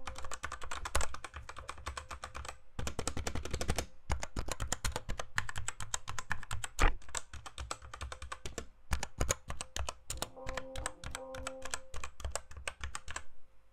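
Fast typing on the Altec Lansing ALGK8404 mechanical keyboard with linear K-Pro red switches: a dense clatter of keystrokes, broken by short pauses about a third of the way in and again past the middle.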